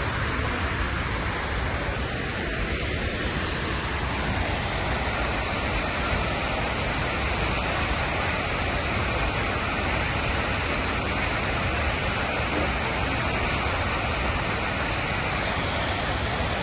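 Multnomah Falls: the steady, unbroken rush of falling water.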